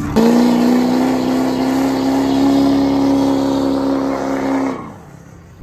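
Pickup truck engine held at high revs during a burnout, a loud steady note creeping slightly up in pitch while the rear tyres spin and smoke, then dropping away fast near the end.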